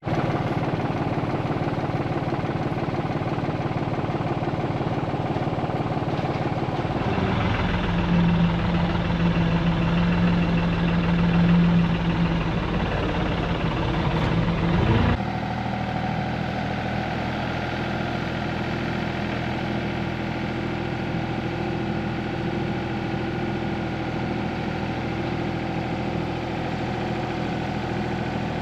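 Farm tractor's diesel engine running steadily. It is louder with a stronger, steady drone from about seven to fifteen seconds in, then drops suddenly to a quieter, even run.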